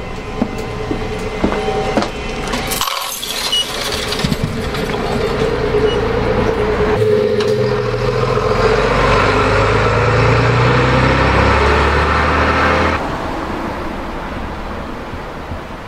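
Route bus engine running beside the stop, its rumble building about seven seconds in and dropping away about thirteen seconds in, leaving a quieter street hum. Before that comes the rattling rumble of the bus interior while riding.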